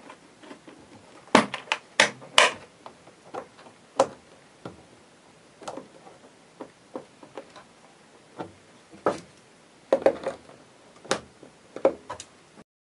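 Scattered clicks and light knocks of hard plastic parts being handled and pressed into place on a Predator 3500 generator's air box housing. The sharpest snaps come in a quick cluster about a second and a half in and again around nine to eleven seconds.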